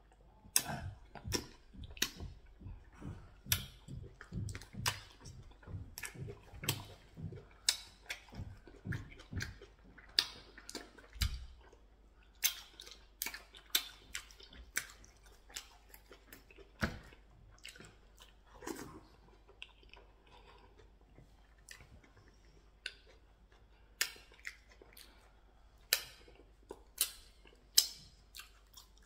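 Close-up eating sounds of a man chewing pounded yam with ogbono soup and meat: irregular wet lip smacks and mouth clicks, with the squish of fingers working the food. They come thickly in the first dozen seconds, thin out in the middle, and pick up again near the end.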